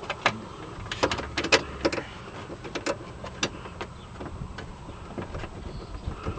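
Irregular sharp clicks and knocks of hand tools and parts being handled during vehicle repair work, spaced unevenly, with a cluster about a second in.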